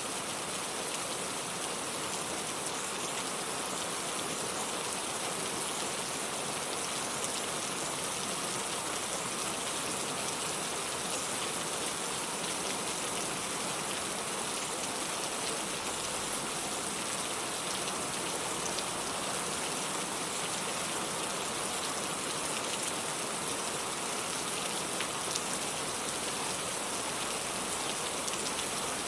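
Steady rain falling: a dense, even hiss with faint scattered drop ticks, unchanging throughout.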